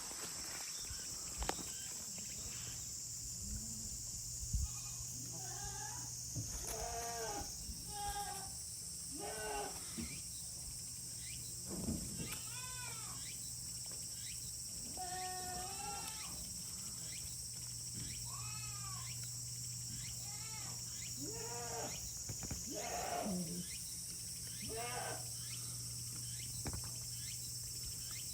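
Goats bleating again and again, one wavering call every second or two, some overlapping, with a steady high-pitched buzz underneath.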